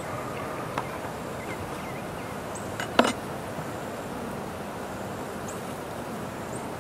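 Honeybees humming around an open hive, with wooden clicks as a frame is pried loose with a metal hive tool: a light click about a second in and a sharp crack about three seconds in.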